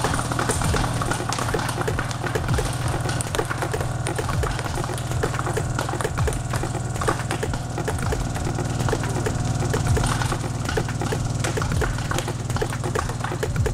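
A 12-inch car subwoofer plays a steady, loud low bass tone. Ping pong balls are launched off its cone and clatter against the cone and the plastic tube walls in dense, irregular clicks.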